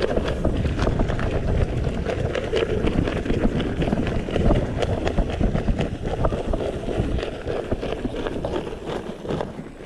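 Mountain bike rolling down a rough dirt track on a punctured tyre, the tyre making a rapid, uneven knocking "krok krok krok" amid the rattle of the bike, with wind rumbling on the microphone.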